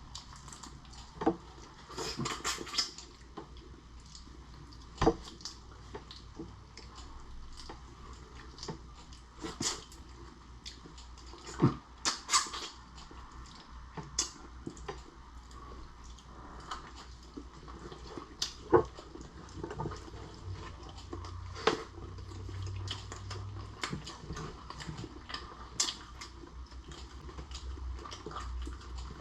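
Close-up eating sounds of a lobster and shrimp meal: scattered wet smacks, sucking and clicks from chewing and picking at shells, a few sharper snaps standing out.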